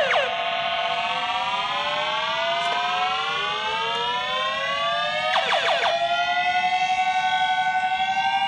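Milton Bradley Star Bird toy spaceship's electronic sound effects: a sustained siren-like tone that sinks slightly and then climbs slowly in pitch, with a short burst of quick falling laser zaps about five and a half seconds in.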